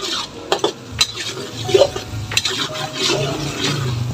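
Metal spatula scraping and clinking against a metal wok as a sauté of garlic, onion and tomato is stirred, the oil sizzling underneath. The spatula strikes come irregularly, several times.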